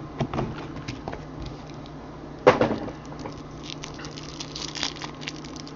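A trading-card box and its packs being handled: scattered light taps, clicks and rustles, with one louder scrape about two and a half seconds in.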